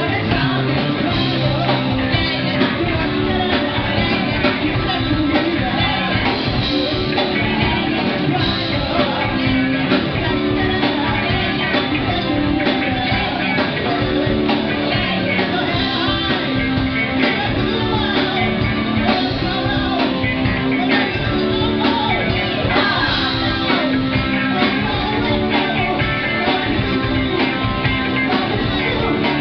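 Live band playing a song with a steady beat: singers at microphones over electric guitars, bass, keyboard and drums.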